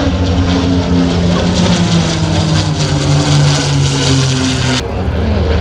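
P-51 Mustangs' Packard Merlin V-12 engines droning loudly as the formation makes a pass, the engine note sinking slightly as they go by.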